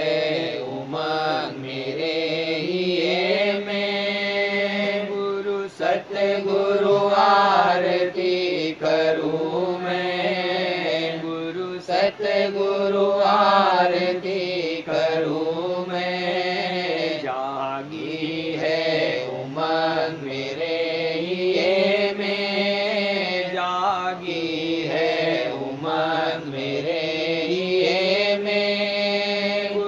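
Devotional shabd music: a sliding melodic line over a steady low drone, in an interlude without sung words.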